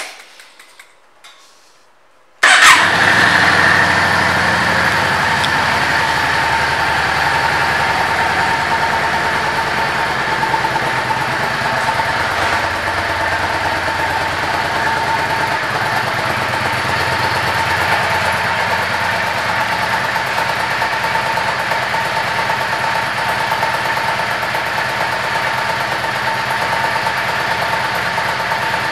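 A 2014 Yamaha V Star 650 Custom's air-cooled V-twin engine catches suddenly about two and a half seconds in, then idles steadily.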